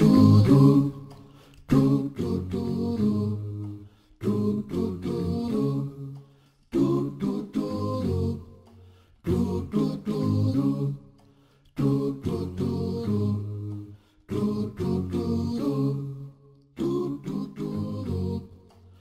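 Background music sung by voices alone, without instruments: the same short sung phrase repeats about every two and a half seconds, with brief gaps between repeats.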